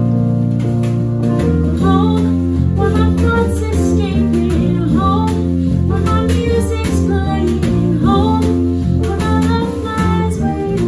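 A female vocalist singing with a small live band: piano, electric guitar, electric bass and drums played with brushes.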